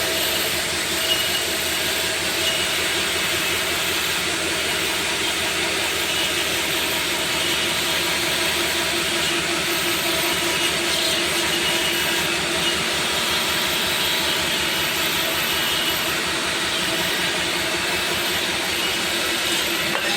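CNC machine running steadily, a constant mechanical drone with several held tones over a hiss of cutting noise.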